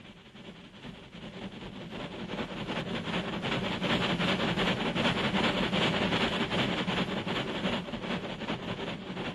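Steam locomotive running with rapid, even chuffing, growing louder as it approaches and fading again near the end.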